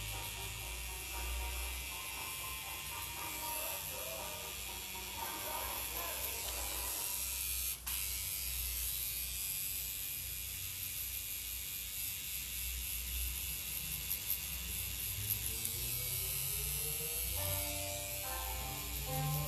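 Tattoo machine buzzing steadily as the needle works into skin, with a momentary break about eight seconds in. Music plays in the background.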